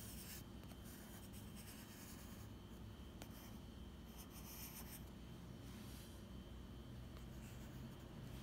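Faint scratching of a graphite pencil on sketchbook paper, in short, irregular strokes as lines and shading are drawn.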